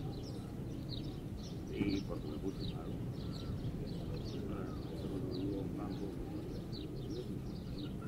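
A steady wash of gentle sea sound on a beach, with a small bird chirping in quick, high notes two or three times a second and a faint murmur of distant voices.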